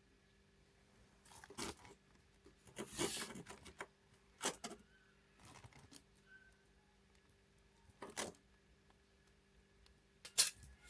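A few short rustling and scraping sounds of things being handled, spaced a second or more apart, the longest about three seconds in.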